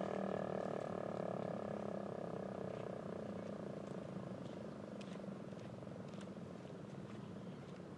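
Federal Signal Eclipse 8 rotating electromechanical siren winding down: its tone falls slightly in pitch and fades away over several seconds. A few faint clicks sound in the second half.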